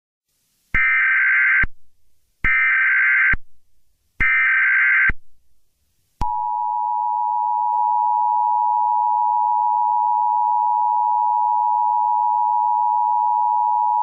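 Emergency Alert System tones: three short bursts of the SAME digital header, each just under a second long. About six seconds in, the steady two-tone attention signal starts and holds.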